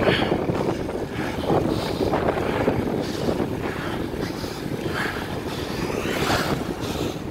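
Wind rushing and buffeting over a phone microphone carried on a moving bicycle: a steady rumbling noise with gusts every second or so.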